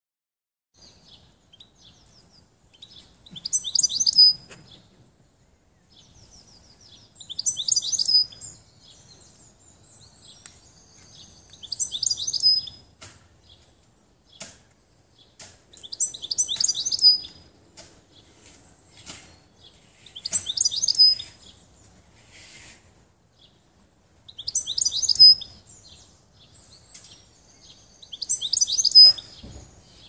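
European goldfinch singing from a wire cage. Seven loud bursts of rapid, liquid twittering come about every four seconds, with softer chirps in between.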